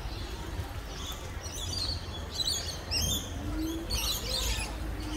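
A flock of birds chirping and twittering in several clustered bursts over a low steady rumble.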